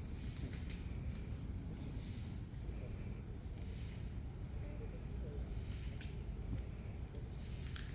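Insects chirping in a high, steadily repeating pulse over a constant low rumbling noise, with a few faint clicks.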